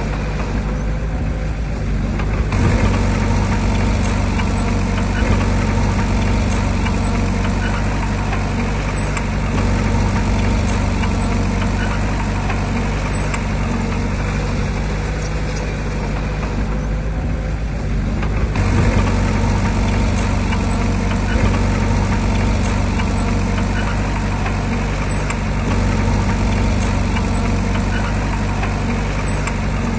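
Diesel engine of heavy earthmoving machinery running steadily under load, with a dense mechanical clatter over a deep, even engine tone. The sound grows fuller about two and a half seconds in and again near eighteen seconds.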